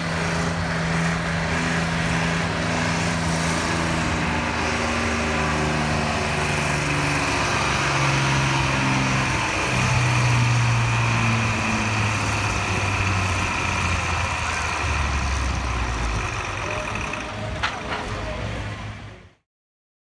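Farm tractor engine under heavy load pulling a sled. Its pitch steps down several times as it lugs down against the growing drag. The sound cuts off abruptly near the end.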